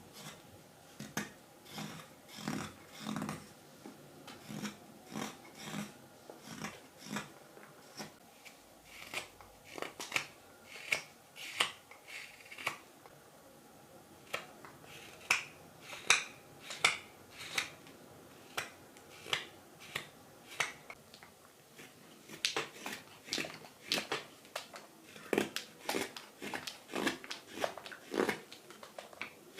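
Mora 106 carving knife slicing shavings off a green wild cherry spoon blank: a long series of short cuts, one or two a second, trimming away the axe marks.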